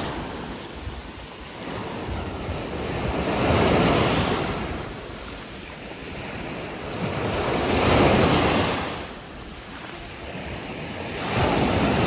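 Sea surf breaking and washing up the beach, rising to a loud rush about every four seconds and falling back between waves.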